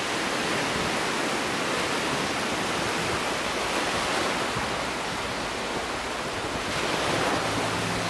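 Ocean surf washing on a beach, a steady rush of noise. Low sustained music notes come in near the end.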